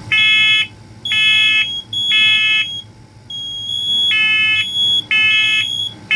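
First Alert smoke alarms sounding in test with shrill beeps at several pitches at once, in the three-beep temporal evacuation pattern. Three beeps come about a second apart, then after a short gap a fainter single tone leads into the next set of beeps.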